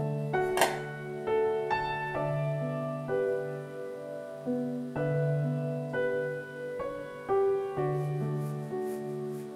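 Gentle solo piano music playing a slow melody over chords, with one short click about half a second in.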